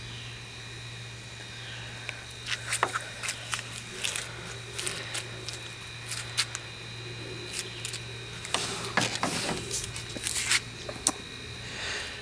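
Handling noise: irregular clicks, taps and knocks from the camera being moved and the blade being handled, over a steady low hum.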